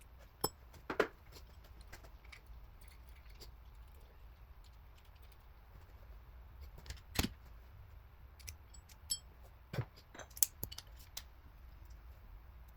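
Scattered, irregular metallic clicks and clinks of hand tools and engine parts being handled during engine assembly, the loudest about a second in, around seven seconds in and near the end, over a faint low hum.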